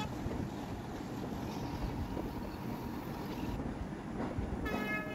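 Passenger train running along the track, heard from aboard: a steady rushing rumble of wheels and wind. Near the end the train's horn starts to sound, one steady tone.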